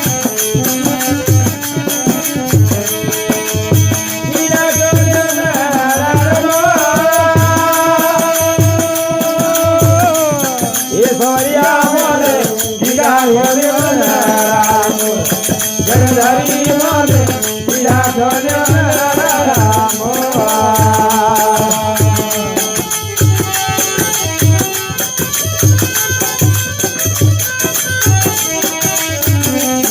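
Marwari folk bhajan music: a gliding melody line over a steady, regular drum beat with rattling percussion.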